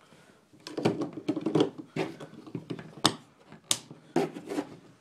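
Hands handling a plastic action camera and its mount: irregular rattling and scraping with several sharp clicks, the clearest about three seconds in and twice more near the end.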